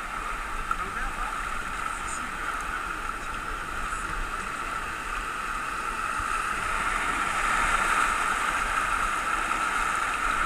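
Rushing whitewater of a mountain river running through rapids, a steady hiss that grows louder about seven seconds in as the kayak moves into the rapid.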